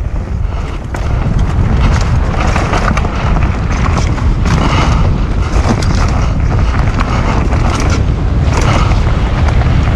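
Mountain bike ridden along a dirt trail: a steady loud rumble of wind on the microphone and knobbly tyres rolling over dirt, with many short clicks and rattles from the bike over bumps and roots.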